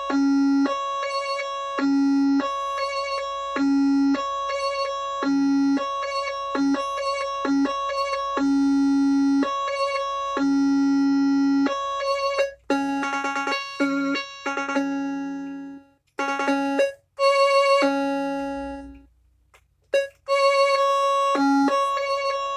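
Music: a simple electronic keyboard melody of held notes repeating a short phrase, with a few brief breaks in the second half.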